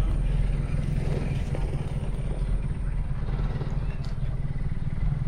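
Steady low rumble of a vehicle engine running, with no change in speed.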